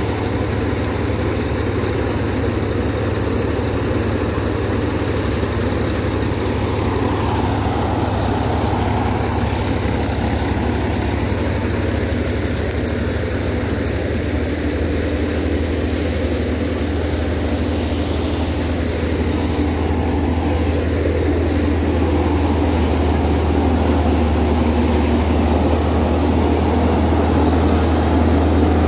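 Mahindra Yuvo 275 DI tractor's diesel engine running steadily, driving a Surjeet paddy thresher whose drum and fans add a constant mechanical din. A steady whine joins about halfway through, and the sound grows a little louder near the end.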